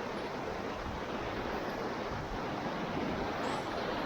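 Rushing whitewater of a river rapid, a steady, even noise with no single splash standing out.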